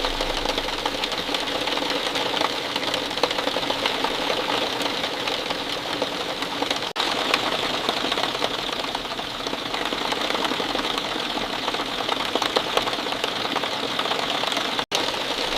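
Steady falling rain, a dense patter of many small drops, broken by two very short dropouts, about seven seconds in and near the end.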